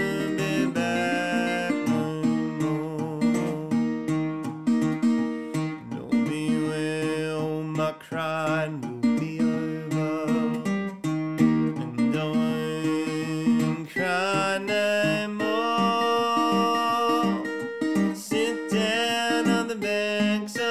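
A National tricone resonator guitar fingerpicked in acoustic blues style, with a man singing over it.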